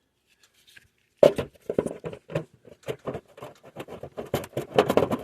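Interlocking gutter guard being pressed back onto the gutter's edge: a quick, irregular run of clicks, snaps and scraping that starts about a second in.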